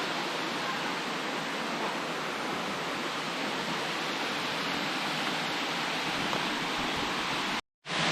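Steady rushing water of a waterfall, an even roar with no rhythm, cut off for a moment near the end.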